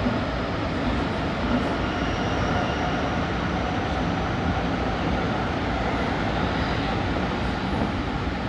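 Tsukuba Express electric train running at speed, with the steady rumble of wheels on rail and running gear heard from inside the train behind the cab.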